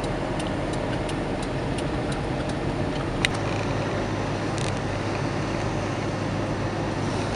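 Steady road and engine noise heard from inside a moving car on a snowy highway, with light ticks every few tenths of a second and one sharper click about three seconds in.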